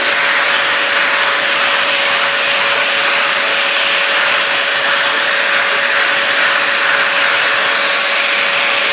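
Vacuum cleaner running steadily, its hose and round brush nozzle being worked over a dog's coat. A steady whine sits over the even rush of motor and airflow.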